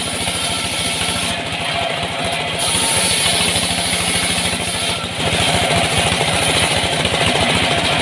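Engine of a timber-sawing rig running steadily with even low firing pulses and a steady hiss over it, getting louder about three seconds in and again about five seconds in.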